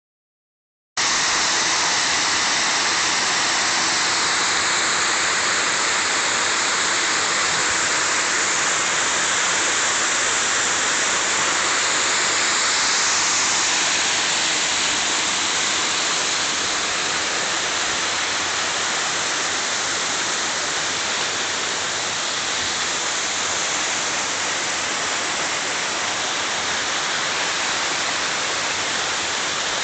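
Waterfall pouring: a steady, dense rush of falling water that starts about a second in.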